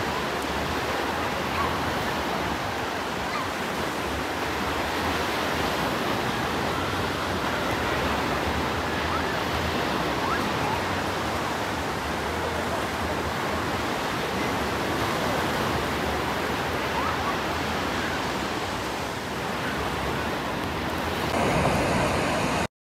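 Sea surf on a sandy beach: a steady rush of waves breaking and washing in, which cuts off suddenly near the end.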